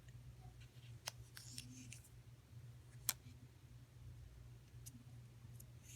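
Faint handling of the plastic protective wrap being taken off a new Apple Watch: a few sharp little clicks and brief soft crinkles, over a steady low hum.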